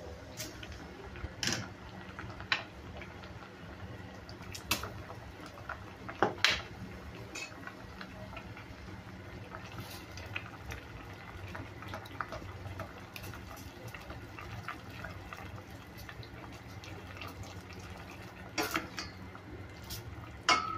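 Ladle knocking and scraping against a stainless steel pot as chopped vegetables are stirred in simmering liquid: scattered clinks, a few louder ones near the start and near the end, over a steady low hum.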